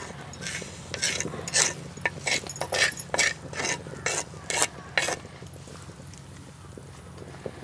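A wooden spatula scraping roasted wheat rava off a pan into a pot of boiling water: a quick run of about a dozen short scrapes that stops about five seconds in.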